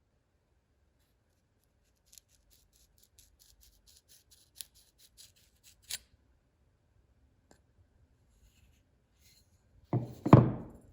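Hand work on a workbench: a run of light, quick scratching strokes, then two heavy knocks close together near the end.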